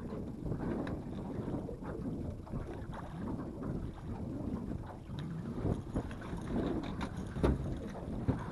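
Wind buffeting the microphone over water noise around a small fishing boat, with scattered faint clicks and a couple of sharper knocks near the end.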